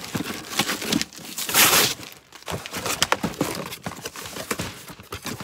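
Cardboard shoeboxes and paper packing being handled: scattered knocks and paper crinkling, with one loud burst of rustling about a second and a half in.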